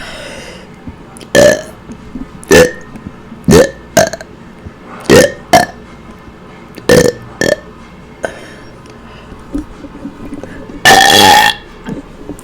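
A woman burping on command: a run of short burps about a second apart, some in quick pairs, then a pause and one longer burp near the end.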